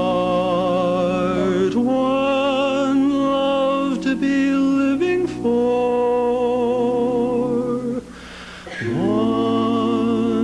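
Male barbershop quartet singing a cappella in four-part harmony: long held chords with vibrato, shifting to new chords a few times, with a short break about 8 seconds in before the next chord.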